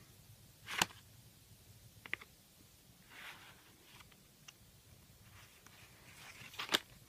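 Card and paper of a handmade picture book being handled: a sharp click about a second in and a few faint ticks, then a page turned near the end with a rustle and a snap.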